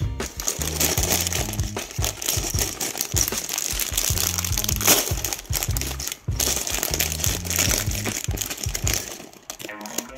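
Clear plastic bag of Lego bricks crinkling as it is picked up and handled, with a sharp crackle about five seconds in.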